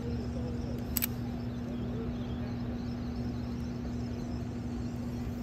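Steady low rumble with a constant hum, from the hydroelectric dam's powerhouse and the river flowing below it, with one sharp click about a second in.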